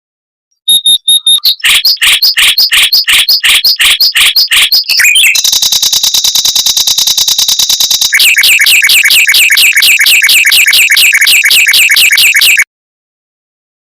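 Mockingbird song in fast repeated phrases: a run of quick, evenly spaced notes, then a very fast trill held for about three seconds, then another rapid series of repeated notes that stops abruptly about a second before the end.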